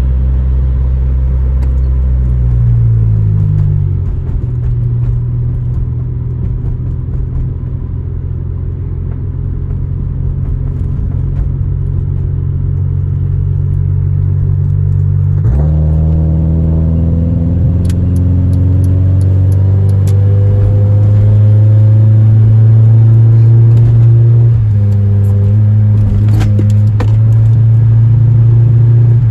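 Honda Civic EJ9's four-cylinder engine running under load while driving, misfiring on all four cylinders (misfire codes 71–74 set). Its pitch drops about three seconds in. From about halfway through it climbs steadily as the car accelerates, with a step in pitch near the end.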